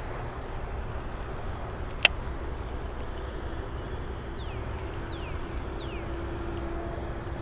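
A steady low outdoor rumble, with one sharp click about two seconds in as the baitcasting reel is engaged after the cast. Three short falling bird chirps and a faint steady hum come in the second half.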